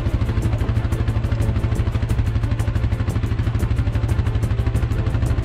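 Quad ATV engine running steadily at low revs with an even, fast pulse, about eight beats a second, as the quad crawls up a steep mud wall.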